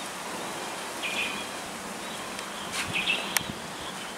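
Outdoor rural ambience: a steady hiss with insects buzzing and short high chirps twice, and a sharp click a little after three seconds in.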